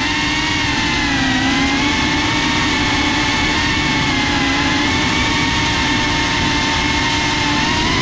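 FPV quadcopter's electric motors and propellers whining loudly, heard from the GoPro mounted on the drone. The pitch sags and rises a little with the throttle and climbs near the end.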